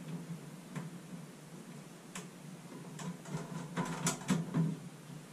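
Scattered clicks and light metallic rattling as a computer case's side door and its thumbscrews are fitted, busiest from about three to four and a half seconds in.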